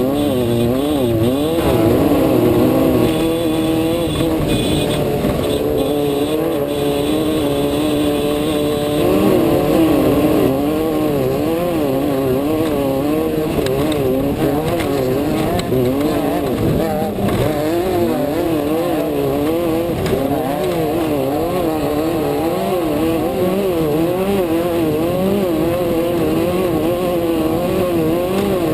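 Off-road desert race car's engine heard from inside the car, its revs rising and falling constantly, several times every few seconds, over a constant rough noise.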